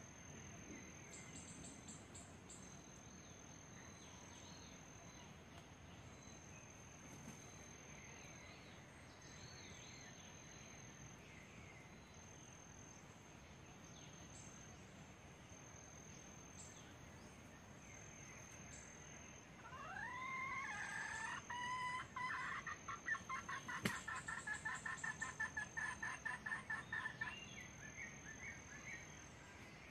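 Red junglefowl rooster calling about two-thirds of the way through: a loud call that rises and curves, then breaks into rapid repeated notes for several seconds before stopping.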